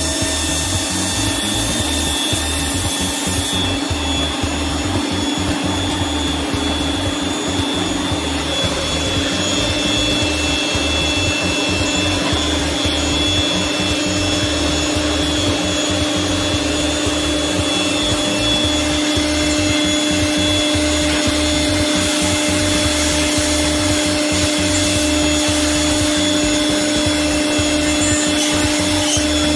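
CNC milling machine's end mill cutting an aluminum part under coolant spray: a steady spindle whine over the hiss of the cut and coolant.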